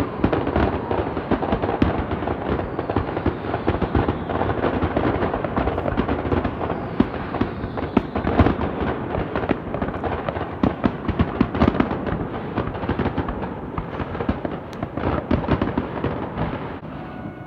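Fireworks going off in a dense, continuous barrage of crackles and pops, many each second, easing off near the end.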